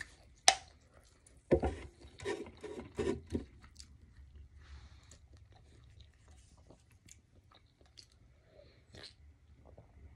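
A person chewing food close to the microphone. A sharp click comes about half a second in, then a run of loud crunchy chews lasting about two seconds, then faint mouth clicks.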